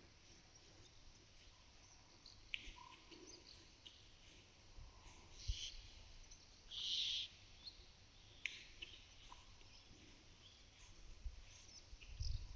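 Cows licking a mineral salt block: quiet, slightly abrasive licks that come in a few short, irregular strokes, with small birds calling and a low thump near the end.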